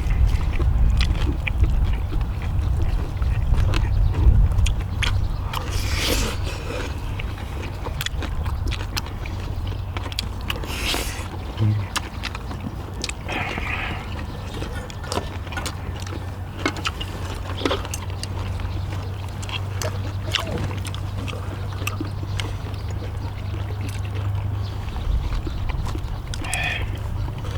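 Eating sounds: chewing, with scattered short clicks of utensils on dishes, over a steady low hum and rumble. A few brief vocal sounds come near the middle and near the end.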